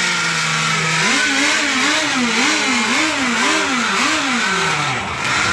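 Small engine of a radio-controlled racing boat, steady at first, then revved up and down in a quick even rhythm about twice a second, its pitch falling away near the end.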